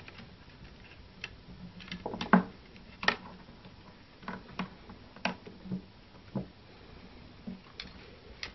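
Irregular small clicks and taps from jumper leads, crocodile clips and wires being handled and connected on a bench, loudest about two and three seconds in.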